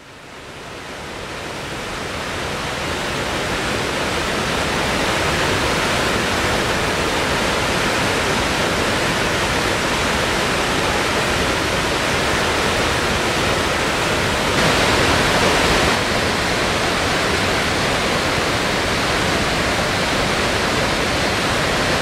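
Water pouring over a concrete lake spillway and churning through the rocks below: a steady rushing that fades in over the first few seconds, swelling a little for a moment past the middle.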